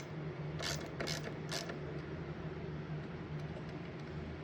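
A hand wrench clicking as it works a bolt on a 1984 C4 Corvette's hood latch: three sharp metallic clicks in the first second and a half, then a few faint ticks, over a steady low hum.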